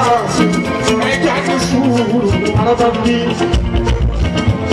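Live Fuji band music: dense drums and percussion with a band playing and a voice singing over them, and a deep bass swell about three and a half seconds in.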